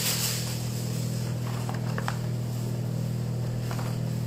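A steady low machine hum, with a few faint light ticks and rustles as a Teflon baking sheet is pressed flat and smoothed by hand.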